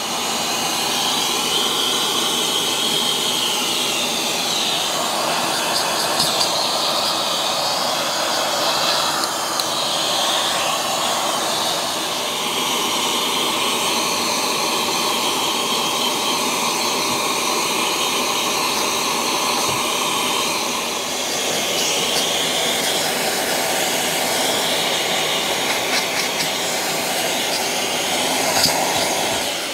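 Vacuum cleaner running steadily through its hose, the nozzle held against car dashboard and door-panel trim to suck up dust brushed into it. The whoosh shifts in tone now and then as the nozzle moves over the surfaces.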